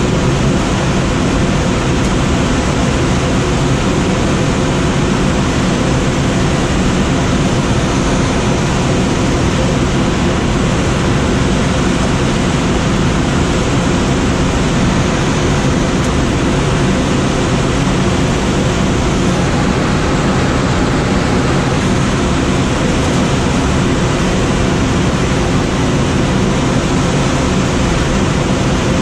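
Steady rush of airflow over a Schweizer SGS 2-32 glider in unpowered soaring flight, even and unbroken.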